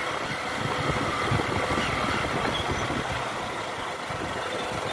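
Motorcycle engine running steadily as the bike rides along, mixed with a rushing noise of wind.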